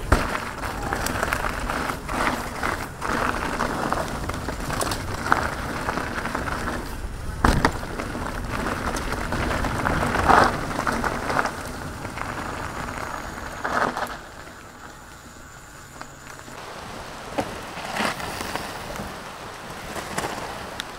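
Wheels rolling over a rough, gravelly trail: a steady crunching rush with frequent knocks and rattles. It eases off for a few seconds past the middle, then picks up again.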